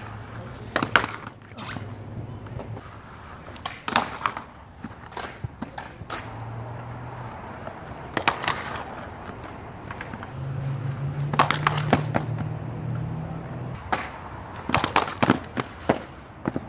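Aggressive inline skates rolling on concrete with a low rumble, broken by clusters of sharp clacks as the skates hit the concrete ledge and the ground during hard spin soul grind attempts.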